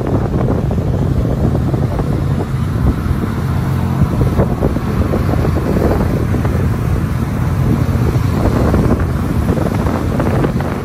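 Wind buffeting the microphone on the open deck of a sightseeing boat, over the low, steady running of the boat's engine.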